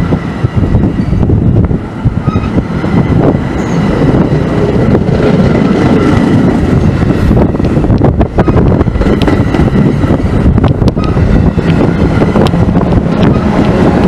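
NJ Transit bilevel passenger coaches rolling past close by: a steady, loud rumble of steel wheels on rail, with sharp clicks from the wheels in the second half, some in close pairs.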